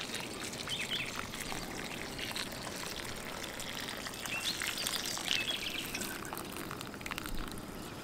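Water pouring from a watering can's spout onto soil, a steady trickle and splash.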